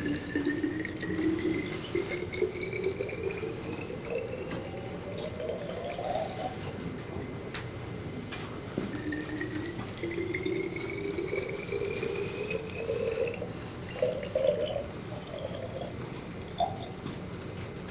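Water poured from a small glass into empty glass bottles, the note of the filling bottle rising steadily as it fills. Two long pours, each a rising gurgle, then a few short trickles near the end.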